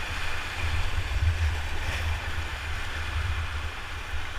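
Rushing whitewater of a river rapid around a raft, a steady hiss, with a low rumble of wind buffeting the microphone underneath.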